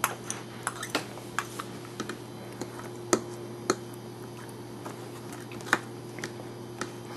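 Irregular light clicks and taps of a metal spoon against a small ceramic bowl and a plastic high-chair tray as food is scooped and served, with a few sharper clicks in the middle and about six seconds in, over a faint steady hum.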